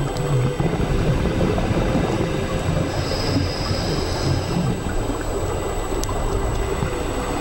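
Steady underwater rumble and hiss picked up through a dive camera's housing, with a faint high tone from about three to four and a half seconds in.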